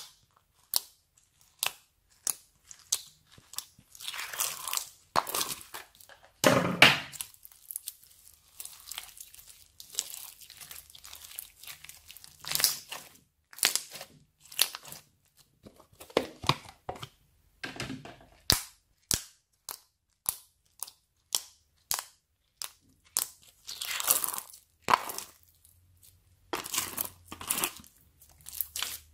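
Slime being poked, pressed and squeezed by hand, giving a quick, irregular run of sticky pops and clicks with a few longer, louder squelches. The slime is mixed with small crunchy bits that crackle as it is worked.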